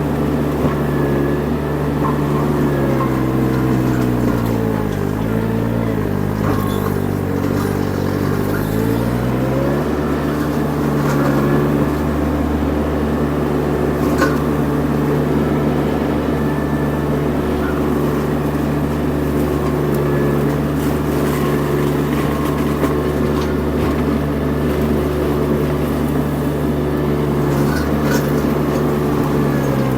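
Kubota diesel engine of a Baumalight mini skid steer running at high speed, driving a forestry mulcher. About four seconds in, the engine speed sags, as it does under load. It recovers about ten seconds in and then holds steady.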